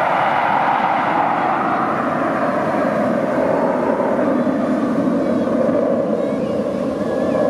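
Loud, steady jet roar from a formation of military jets flying low overhead, its pitch sinking slightly as they pass.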